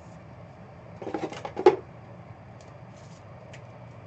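Trading cards being handled at the table: a short flurry of clicks and rustling about a second in, ending in one sharp snap, over a steady low room hum.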